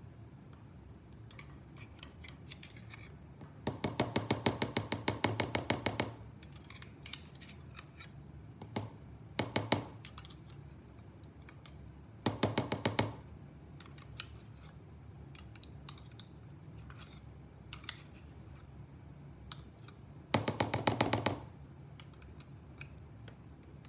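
Metal spoon scraping thick blended cottage cheese off an immersion blender's blade guard: four bursts of rapid clicking rattles, the longest about two seconds, starting about four seconds in, with scattered single clicks and taps between.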